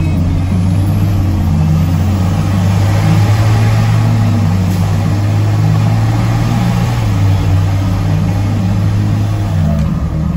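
Tow truck engine and road noise heard from inside the cab while driving, a steady low hum whose pitch steps down about seven seconds in and again near the end.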